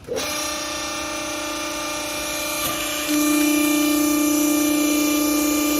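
Vertical hydraulic baler's electric motor and hydraulic pump starting up and running with a steady hum, growing clearly louder about three seconds in.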